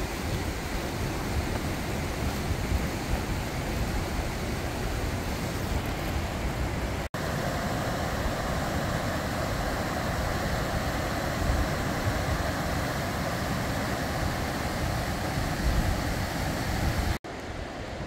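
Mountain river rushing over a rocky bed, a steady roar of water, with wind buffeting the microphone. The sound breaks off for an instant twice, about seven seconds in and near the end, and after the first break the rush of water is closer and brighter.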